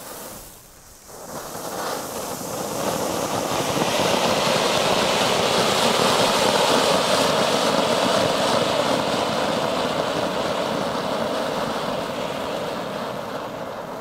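Red Funke 'Silberturm' ground fountain burning: a loud, steady hissing rush of spraying sparks. It starts about a second in, swells over the next few seconds, then holds and eases off near the end.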